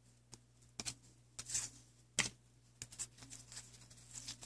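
Football trading cards being flipped through by hand: a scattering of soft clicks and short brushing slides as card stock slips against card stock.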